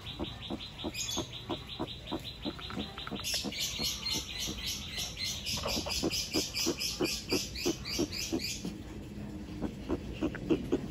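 Male red-footed tortoise clucking in a steady rhythm while mating, about three short clucks a second. A faster, high chirping runs alongside and stops near the end.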